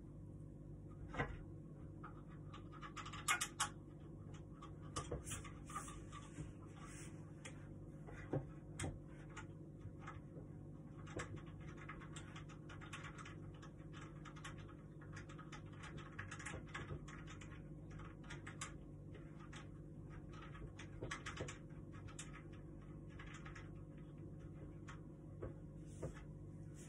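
Irregular small clicks, taps and scrapes of hand-assembling a small wooden table frame, with a few louder knocks here and there, over a steady low hum.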